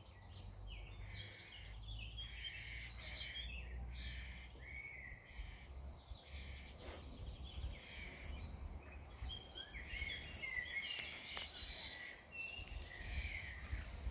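Fledgling common starling giving short begging calls over and over, louder and more frequent in the second half, over a steady low rumble.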